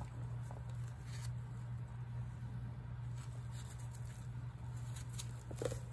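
Steady low hum with faint scattered clicks and soft rustles from handling, and one brief blip near the end.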